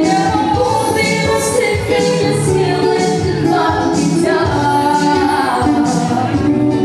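Acoustic guitar played live through a PA, strummed with percussive hits on the strings and body, with a singing voice over it.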